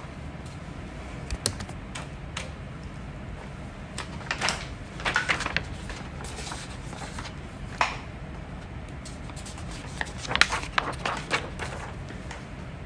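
A person hiccuping slowly: short, sharp hiccups spaced seconds apart, some single and some in quick little clusters, over a steady low background hum.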